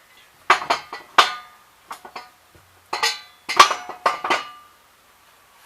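Steel clamp-on forks being struck with a hammer: about a dozen sharp, ringing metal strikes in quick pairs and clusters.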